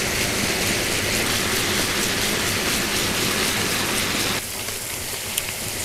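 Seasoned stock bubbling steadily in a wok, simmering over a medium-low flame as a braise; the sound steps down a little about four and a half seconds in.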